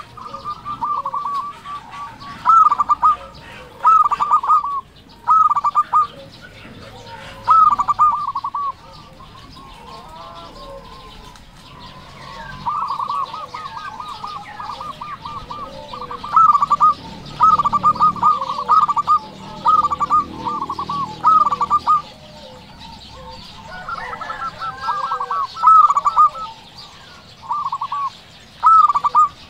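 Zebra dove (perkutut) cooing its song in repeated short bursts of rapid staccato notes, at times running together into a longer stretch of cooing. Other small birds chirp faintly.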